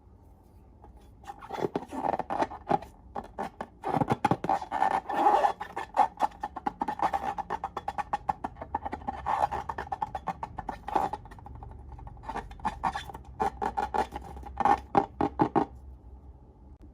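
Slime being squeezed and kneaded by hand, giving clusters of rapid wet clicks and pops that come and go in bursts.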